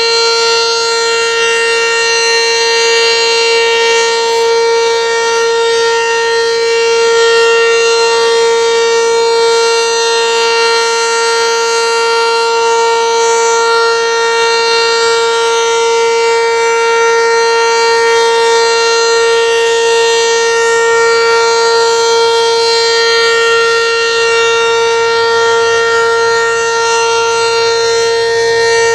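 ACA Banshee outdoor warning siren sounding a single steady, loud tone at full speed, its pitch holding level throughout: a weekly test sounding.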